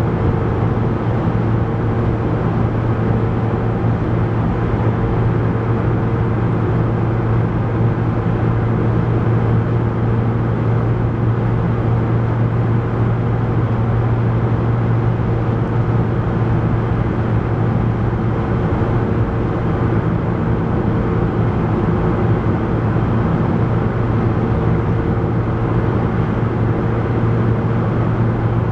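Steady low drone of a moving road vehicle, engine hum and road noise together, unchanging in level.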